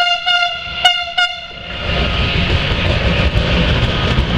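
Electric locomotive horn giving a few short single-note toots in the first second and a half, then the steady rumble and wheel noise of an electric locomotive rolling along the station tracks.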